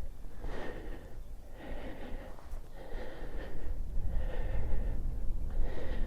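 A hiker breathing hard from the exertion of a steep uphill climb, a breath about every second, getting a little louder past the middle, over a steady low rumble.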